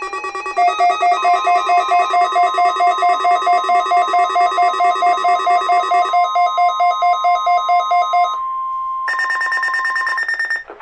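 Weather radio receivers alarming during a NOAA Weather Radio weekly test: the broadcast's steady warning-alarm tone sounds together with the receivers' electronic alarms, one beeping about four times a second. The beeping stops about eight seconds in, and a higher-pitched alarm beeps briefly near the end.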